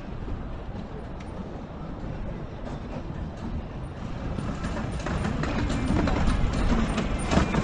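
Steady low vehicle rumble, getting louder over the last few seconds.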